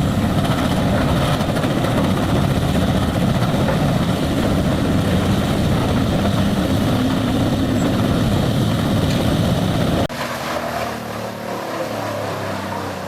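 Bandit Beast 4680 horizontal grinder running under load, its engine and grinding drum making a loud, dense, steady noise. About ten seconds in this cuts off abruptly to a quieter, steady engine drone from a Morbark wood chipper.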